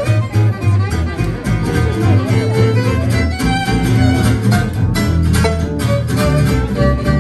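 Live acoustic swing: a fiddle plays the melody over two acoustic guitars strumming a steady rhythm.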